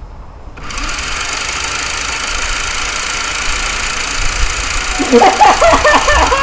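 Toy minigun firing: a sudden, continuous mechanical whirring buzz that starts about half a second in and holds steady. About five seconds in, a person yells loudly over it.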